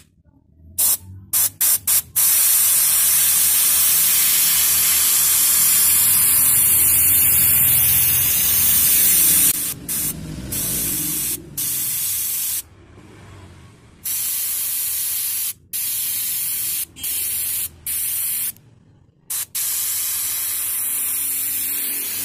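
Air spray gun spraying a clear PU coat onto a motorcycle engine cover: a steady hiss for several seconds, then a run of shorter bursts as the trigger is pulled and released.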